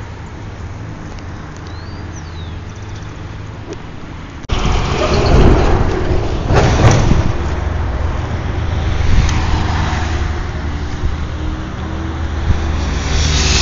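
Road traffic noise from a wide multi-lane avenue, a steady roadside hum of cars. About four and a half seconds in it jumps suddenly louder, and a vehicle rushes past a second or two later.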